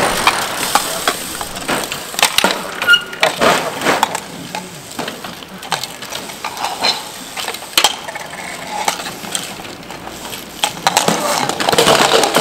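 Irregular sharp clacks and knocks from hardcourt bike polo play: mallets striking the ball, the court and each other, and bicycles jostling, with a louder stretch of clatter near the end.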